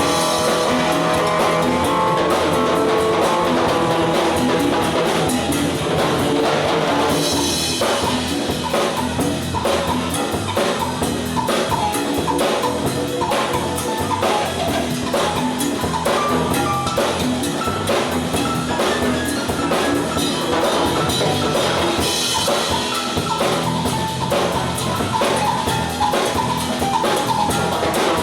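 Live band playing an instrumental tune: guitar lines over a steady drum-kit groove with bass drum and cymbals.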